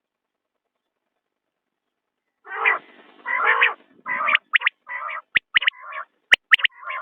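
Quail calling: after about two and a half seconds of silence, a quick run of short, sharp calls, the first two a little longer.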